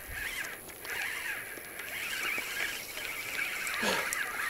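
Night-time chorus of small calling animals, a dense high chorus that swells and fades in bouts about a second long, with a brief falling sound near the end.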